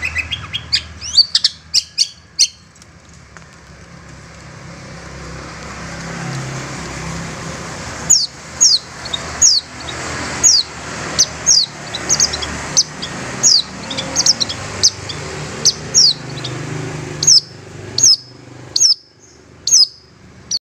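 Long-tailed shrike calling. A quick burst of sharp chirps comes in the first couple of seconds. From about eight seconds in comes a long run of short, sharp notes, each falling in pitch, about one and a half a second.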